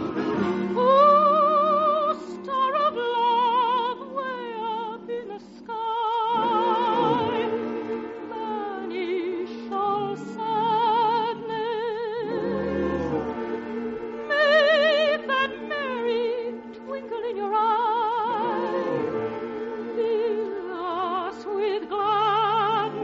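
Operatic singing with a wide vibrato, long held high notes over an orchestral accompaniment: a song from an operetta in an old radio recording.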